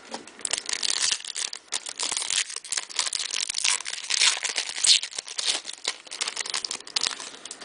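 Wrapper of a baseball card pack crinkling and tearing as it is opened: a dense run of crackles that stops shortly before the end.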